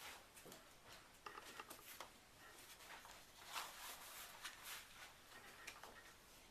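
Near silence: room tone with faint, scattered clicks and rustles.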